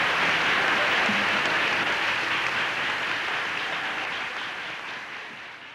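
Audience applauding, fading out steadily.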